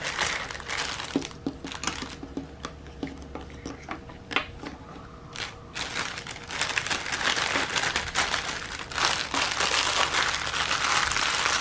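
Clear plastic bags crinkling as they are handled. The crinkling is sparse for the first half, with a few light clicks, then turns steady and denser from about halfway through.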